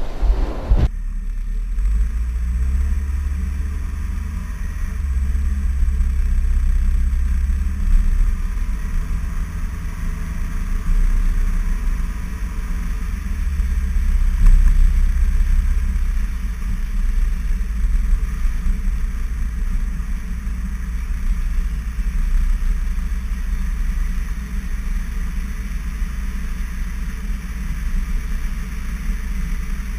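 Wind and road rumble from a moving car, heard by a GoPro Hero2 in its waterproof case mounted on the outside of the car. A steady low rumble that swells and eases.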